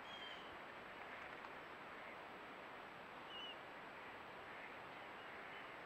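Faint outdoor ambience: a steady hiss with a few distant bird calls, including two short high chirps, one right at the start and one about halfway through.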